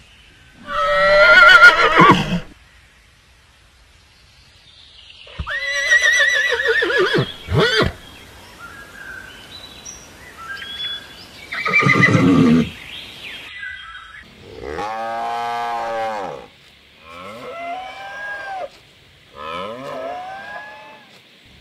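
A horse neighing in three loud calls with a wavering pitch, then a cow mooing three times, each moo a long call that rises and falls.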